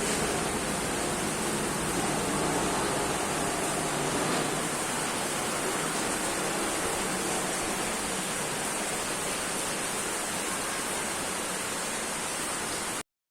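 Hualian vacuum sealer's vacuum pump running with a steady, even rushing noise, cut off abruptly near the end.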